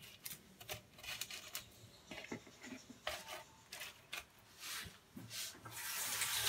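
Hands rubbing and shifting raw sardines on a salted metal baking tray: irregular scraping and rubbing, with coarse salt grating against the pan, growing into a louder hiss near the end.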